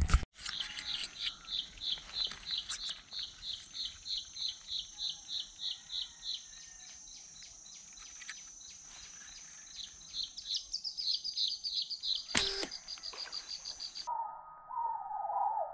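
A bird calling a long run of high, regular chirps, about four a second, faster for a while near the end. A single sharp snap comes about twelve seconds in, the slingshot being fired.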